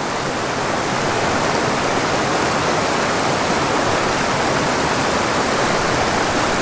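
A small mountain stream rushing over rocks in shallow whitewater riffles, close up: a loud, steady, even rush of water.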